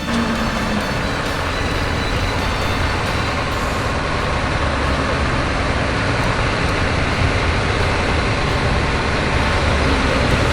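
Steady noise of a running vehicle, growing slightly louder.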